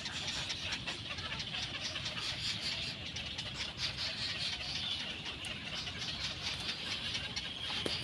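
Faint, steady high-pitched chittering made of rapid small ticks, from birds.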